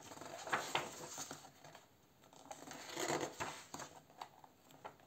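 Paper rustling as a page of a paperback colouring book is turned and smoothed flat by hand, in two bouts: about half a second in and about three seconds in.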